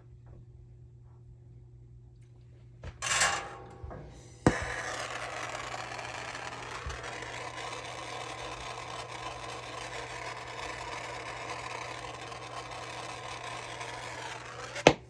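Jeweler's soldering torch lit with a sharp click about four and a half seconds in, then burning with a steady hiss for about ten seconds as the ring is preheated for soldering, and cut off abruptly near the end. A brief louder noise comes a little over a second before it lights.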